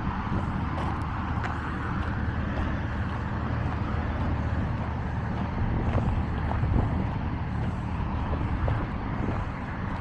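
Steady hum of road traffic, a continuous low rumble with no single vehicle standing out.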